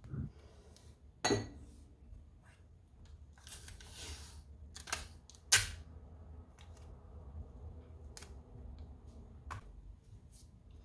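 Desk handling sounds from an instant-film print and a desktop tape dispenser: a few sharp clicks and taps, the loudest about five and a half seconds in, and a short rasp of tape pulled off the roll about four seconds in.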